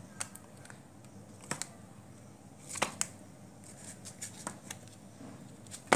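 Light scattered clicks and rustles of fingers handling and pulling loose the thin lead wires of a soldering iron's heating element, with one sharp click at the end.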